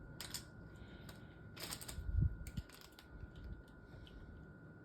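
Scattered light clicks and a soft knock from hands handling a boxed GAN 11 M Pro speedcube, over a faint steady high-pitched tone.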